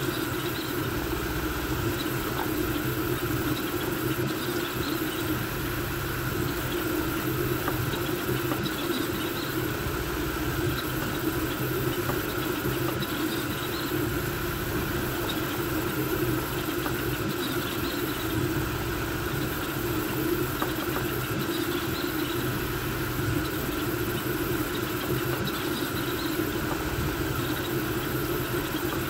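Voron V2.4 3D printer printing at high speed: the stepper motors of its CoreXY gantry hum, their tone shifting with each quick move, over the steady whir of its cooling fans.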